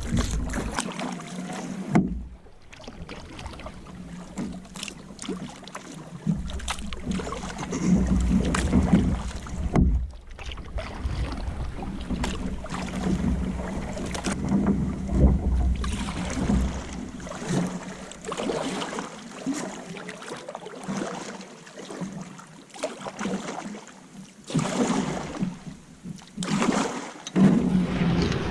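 A canoe paddle splashing stroke after stroke, with water lapping against the hull and wind buffeting the microphone at times.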